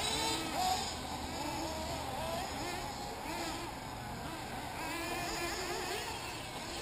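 Several 1/8-scale nitro RC buggy engines running at once, their high whine repeatedly rising and falling in pitch as they rev up and back off.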